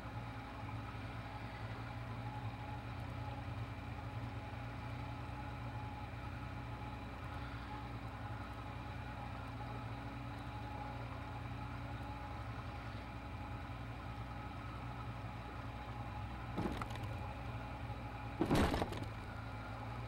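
Motorboat engine running steadily, a constant drone. Near the end come two brief bursts of rushing noise, the second one louder.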